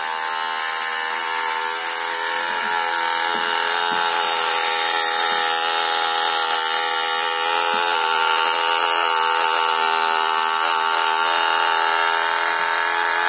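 Two small vibration motors taped to a small enamel pot, which is pressed against the ceiling, humming loudly together. The pot carries the vibration as a steady drill-like drone, rising a little in level about two seconds in.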